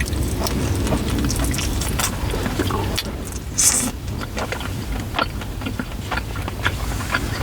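Close-up chewing and mouth noises of someone eating pizza and chicken wings: irregular wet crackles and clicks. A steady low rumble sits underneath, and there is a short hiss about three and a half seconds in.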